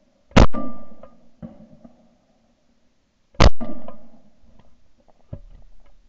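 Two shotgun shots about three seconds apart at an incoming pair of clay targets, heard from a camera mounted on the gun itself. A few lighter clicks and knocks follow near the end.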